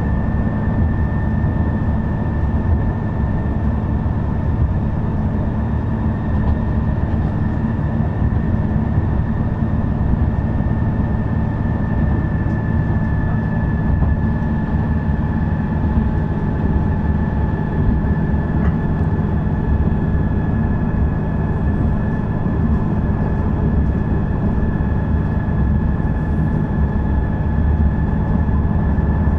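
Running sound of a Shigaraki Kohgen Railway SKR310-series diesel railcar (SKR311) under way, heard from on board: a steady rumble of engine and wheels on rail, with a steady high whine over it.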